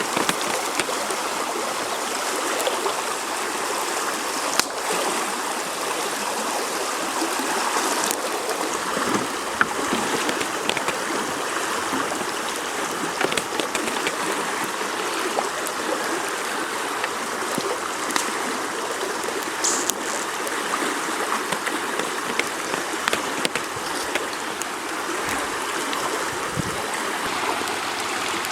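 A river flowing: a steady rush of water, with a few faint clicks scattered through it.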